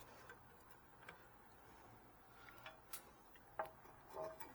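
Near silence with a few faint, scattered clicks and taps of wires and a plastic wire nut being handled in a cramped electrical box.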